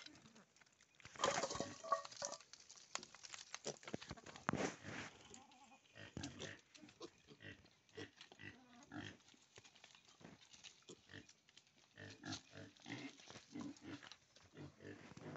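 A group of piglets grunting as they root and feed among stones, with many short knocks and scuffs of snouts and hooves on the stony ground.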